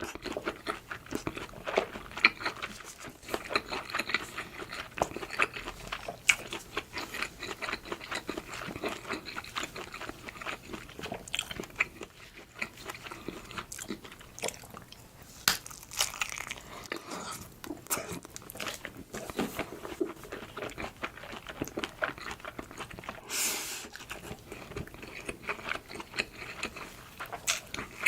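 Close-miked eating: a person biting and chewing food, with crunching and many small irregular mouth clicks.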